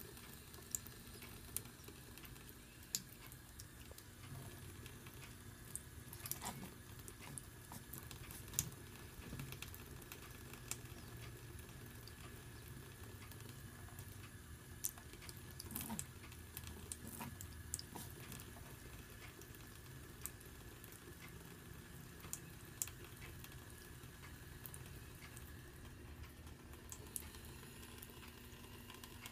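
A thin stream of tap water running into a bathroom sink, faint, with scattered small splashes and ticks as a kitten paws at the stream.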